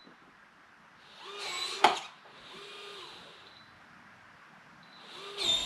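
Electronic keypad-and-fingerprint door lock's small motor whirring briefly as it drives the deadbolt, ending in a sharp click. This happens twice, about a second and a half in and again near the end, with a fainter whir in between.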